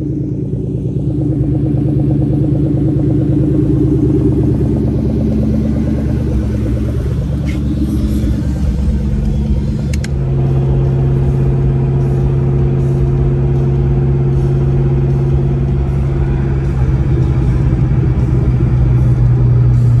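Supercharged 4.6-litre V8 of a 2003–04 Mustang SVT Cobra running while driving off, heard from inside the car. Its steady pitch drops and settles lower about halfway through.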